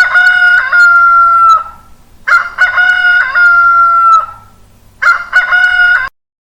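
Rooster crowing cock-a-doodle-doo three times. The first two crows each end on a long held note, and the third is cut off short.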